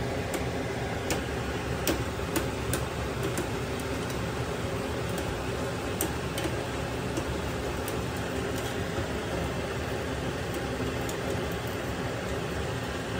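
Fryums frying in a kadhai of hot oil: scattered crackles and pops, thicker during the first few seconds, over a steady rushing background noise.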